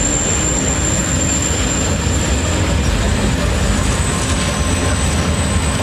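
Freight train of tank wagons rolling past close by: a steady, heavy rumble of wheels on the rails, with a thin high whine held throughout.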